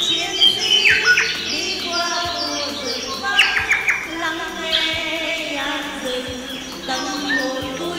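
Background music of held melodic notes, with bird chirps and quick falling whistles mixed in over it.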